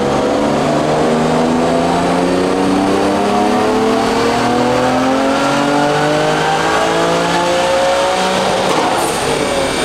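Turbocharged BMW S54 straight-six in an E30 M3 making a full-throttle pull on a chassis dyno. Its pitch climbs steadily for about nine seconds up toward 7,500 rpm on about 1.3 bar of boost, then drops away near the end as the throttle is lifted.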